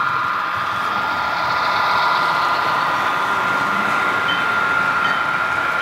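HO-scale model freight train running on the layout, a steady whine over rolling noise.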